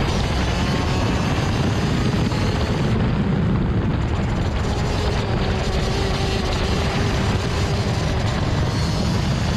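Rotax Max DD2 125 cc two-stroke kart engine running on track, largely covered by a steady, loud rumble of wind on the onboard camera's microphone.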